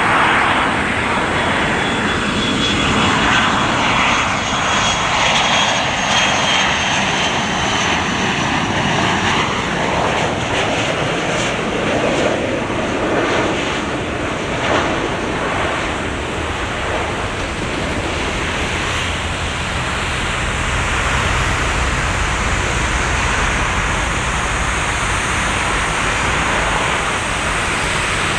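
Boeing 737-200's Pratt & Whitney JT8D low-bypass turbofans running loudly as the jet passes, a high whine slowly falling in pitch over the first several seconds, with a deep rumble growing in the latter half.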